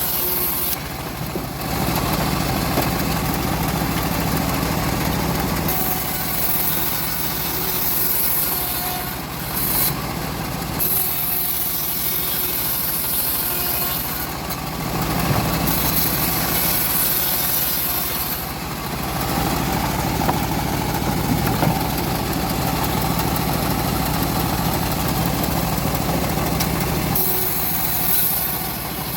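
Homemade bandsaw mill running steadily while sawing a teak log, with a high hiss that comes and goes every few seconds over the motor's hum.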